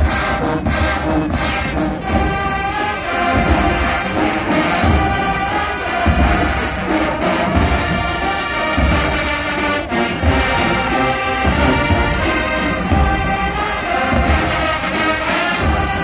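HBCU marching band playing loudly: a full brass section over heavy, regular drum beats.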